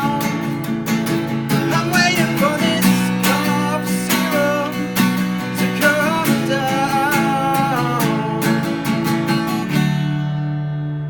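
Acoustic guitar strummed with a male voice singing over it. Near the end the strumming stops and a last chord rings out and fades.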